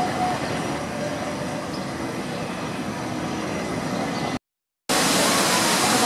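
Steady low rumble of distant traffic, with a short faint tone near the start. It drops out briefly about four and a half seconds in, and a louder steady hiss follows.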